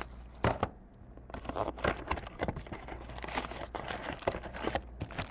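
Packaging of a box of baseball cards being handled and opened: irregular crinkling and small clicks, with a sharper click about half a second in.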